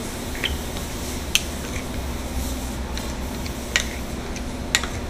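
Metal spades chopping and scraping ice cream on the chilled stone slab of an ice cream counter, with several sharp clicks as a blade strikes the stone.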